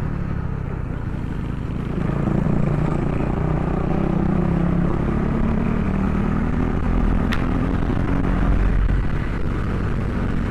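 Motorcycle engine running steadily at cruising speed under the rider, with wind rushing over the microphone. The engine note swells slightly about two seconds in and there is one small click later on.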